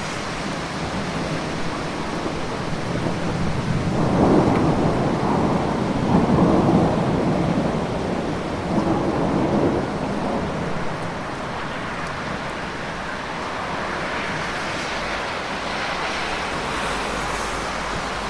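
Steady heavy rain. A low rolling rumble swells up about four seconds in and fades out around ten seconds.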